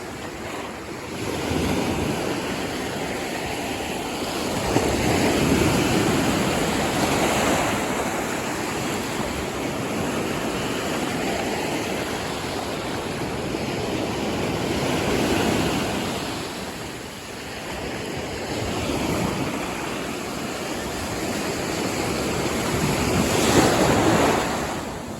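Ocean surf: waves breaking and washing up the beach in repeated surges a few seconds apart, the loudest one near the end.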